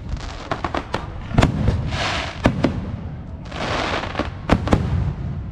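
Aerial firework shells bursting in quick succession: a run of sharp bangs over a low rumble, with two longer spells of noisy hiss about two and four seconds in.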